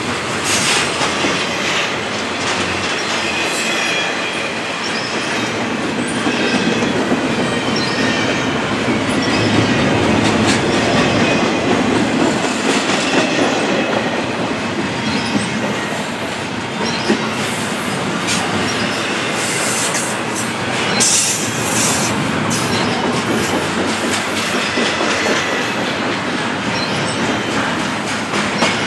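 Intermodal freight cars rolling past, the wheels clicking over the rail joints, with faint wheel squeal.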